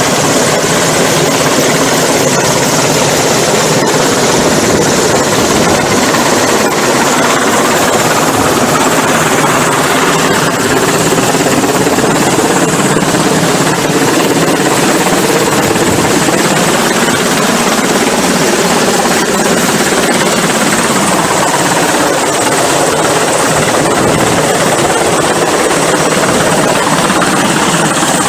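Rescue helicopter close overhead: loud, steady rotor and engine noise with no break.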